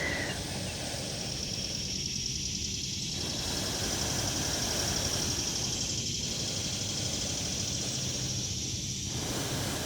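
Cicadas droning, a steady high-pitched buzz that holds without a break, over a low background rumble.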